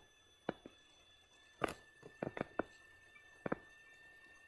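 Stylus tapping on a tablet screen during handwriting: irregular sharp ticks, the loudest about one and a half seconds in and a quick run of four just after two seconds, over a faint steady high-pitched whine.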